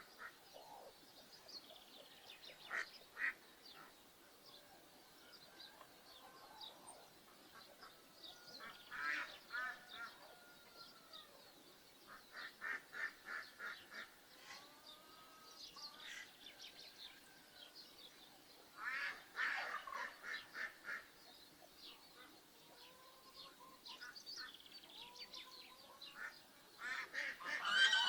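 Farmyard ducks and geese calling in bouts of rapid, evenly repeated quacks and honks, with softer scattered calls in between; the loudest bout comes near the end.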